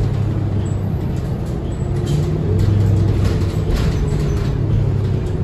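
Diesel engine of a New Flyer XD40 transit bus running, heard inside the cabin as a steady low drone with road noise and light interior rattles.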